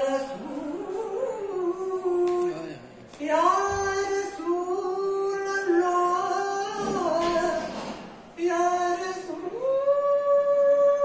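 A man singing a Persian Sufi devotional poem (Farsi kalaam) unaccompanied, in long held and ornamented notes, with short pauses for breath about three and eight seconds in.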